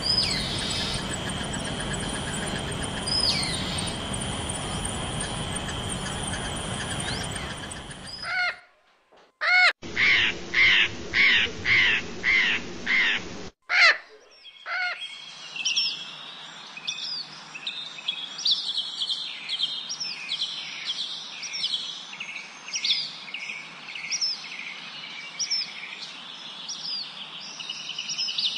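Birds calling outdoors: a few faint chirps over a steady hiss and a steady high hum, then, about ten seconds in, a run of about eight loud, evenly repeated calls, each rising and falling in pitch, and from about fifteen seconds in many short, high chirps from small birds.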